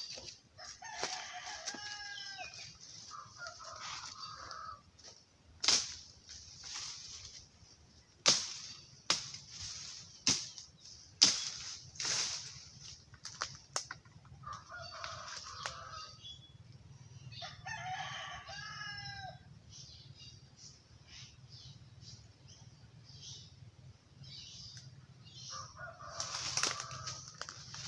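Roosters crowing several times, long pitched calls, with a run of sharp cracks from dry twigs and leaf litter underfoot in between.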